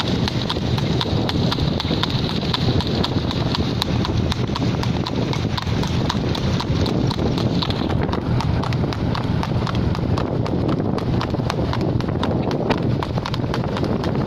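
Horse's shod hooves clip-clopping on asphalt at a fast trot, a rapid, even run of strikes, over a steady low rumble.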